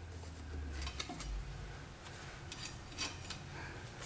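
Light clicks and ticks as a 45 rpm record is lifted off the spindle of a 1959–60 RCA Victor 1-EMP-2K portable record player, with a low hum from its one-tube amplifier during the first second or so, which the owner puts down to filter capacitor hum.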